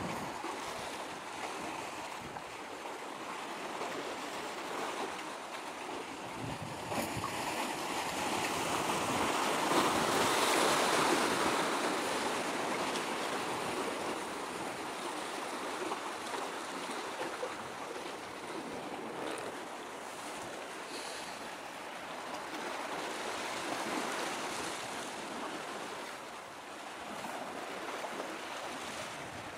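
Steady wash of small waves and wind. It swells for a few seconds about ten seconds in.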